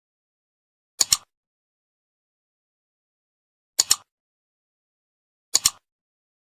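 Computer mouse click sound effect, heard three times: about a second in, just before four seconds in and a little before the end. Each is a quick pair of clicks, like a button pressed and released.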